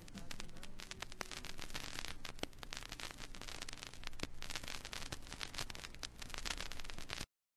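Dense crackling and hiss of recording surface noise with the music gone, cutting off suddenly near the end.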